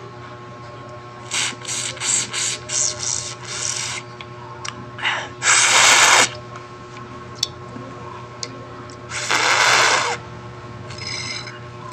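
Slurping through a straw from a small plastic drink bottle that is nearly empty: a quick run of short sips, then two longer, loud slurps as air is drawn in with the last of the liquid.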